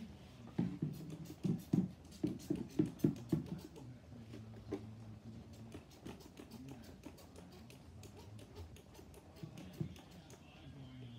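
Soft thumps and knocks of small household things being picked up and set down during tidying, a quick run of them in the first few seconds, then quieter handling with a few scattered knocks.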